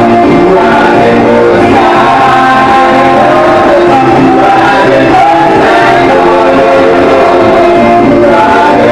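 Live praise and worship music: voices singing over instruments, loud and unbroken.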